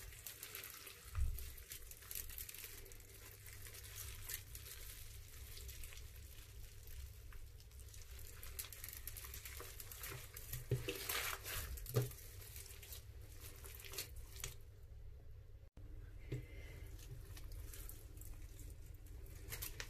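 Hands squeezing and kneading crunchy slime mixed with beads: wet squishing with many small crackles and a few louder pops.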